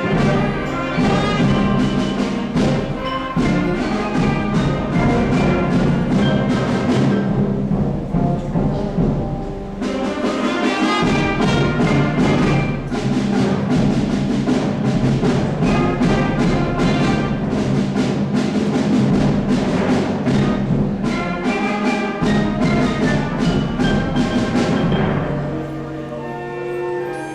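Orchestral music with brass and timpani over a steady percussive beat.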